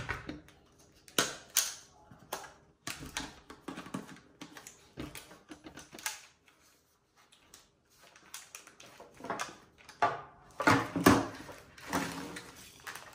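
Sharp plastic clicks and knocks from a VICTURE HC300 trail camera being handled: its latches are unclipped and the hinged plastic housing is opened. The clicks come one or two at a time with pauses between them, and the loudest cluster comes near the end.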